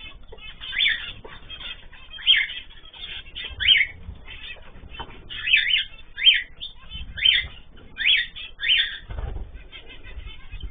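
Pet birds calling over and over, short sweeping calls coming roughly once or twice a second.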